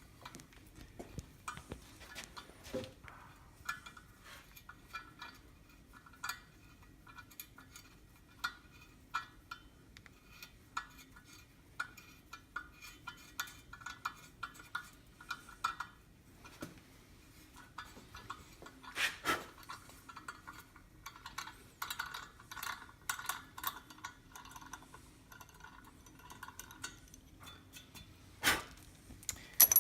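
A 1/4-20 tap being turned to recut cross-threaded bolt threads in metal: faint, irregular metallic clicks and clinks, with a faint squeak that comes and goes as the tap cuts.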